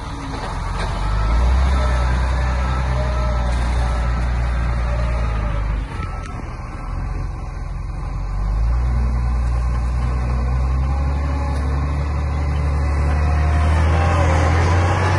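SEM wheel loader's diesel engine running under load as it pushes brush, easing off briefly about six seconds in and then pulling harder again a couple of seconds later.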